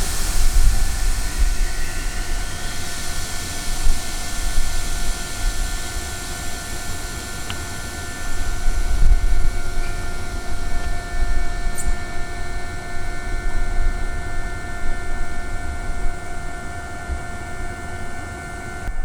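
Electric train standing or moving slowly, its equipment giving a steady whine made of several held tones, over a low rumble. A high hiss fades out over the first few seconds.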